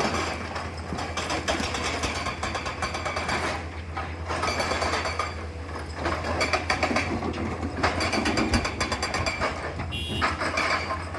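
Komatsu PC210LC-10 hydraulic excavator's diesel engine running steadily under a clattering, rattling noise of crushed blue metal stone being handled. The clatter drops away briefly about four seconds in and again near the end.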